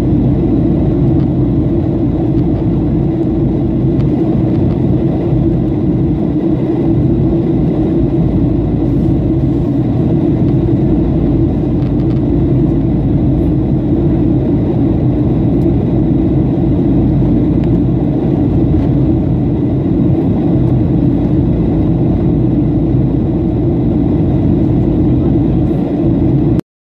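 Jet airliner cabin noise in flight: the steady drone of the engines and rushing air heard from a window seat, strongest as a low hum. It cuts off suddenly at the very end.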